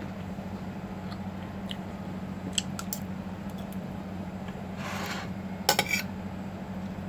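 Crisp fried fish being torn apart by hand and eaten, with scattered small clicks and a short crackly burst just before six seconds in, over a steady low hum.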